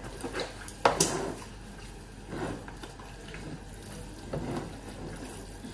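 Gloved hands mixing chunks of wet marinated pork in a plastic bowl, with squelching and rustling strokes of the meat and a couple of sharp knocks about a second in.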